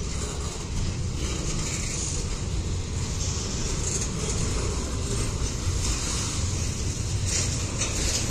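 Double-stack intermodal freight cars rolling slowly past: a steady rumble of wheels on rail with a hiss above it, and a few sharp clicks near the end.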